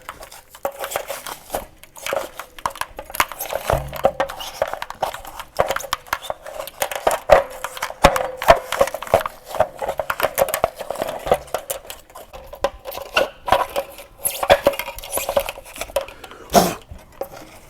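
Insulation being pulled and scraped out by hand around the anode rod fitting on top of a water heater: irregular scratching, rustling and crackling, with a louder knock near the end.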